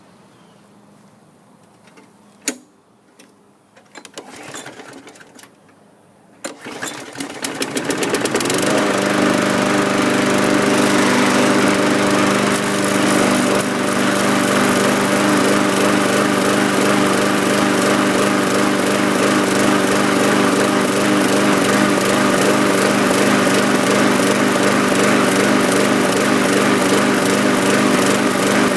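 A 2003 Murray 22-inch push mower's engine pull-started, catching on its own about six and a half seconds in and rising to speed, then running steadily and loudly with a surging carburetor.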